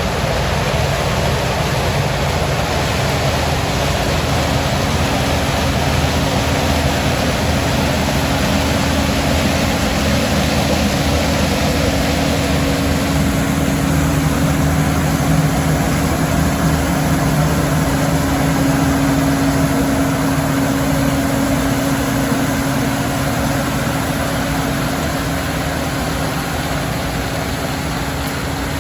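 A vehicle engine running steadily, a constant hum under a dense rushing noise.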